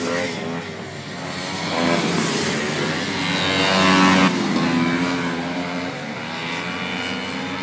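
Racing snowmobile engines at high revs, climbing in pitch and loudness to a peak about four seconds in, then dropping away.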